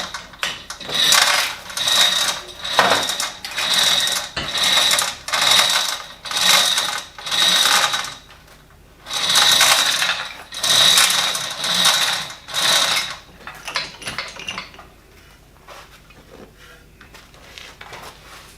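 Metal ratcheting in steady strokes, about one a second, each stroke a short clatter with a metallic ring. The strokes pause briefly about eight seconds in, run on for a few more, then stop.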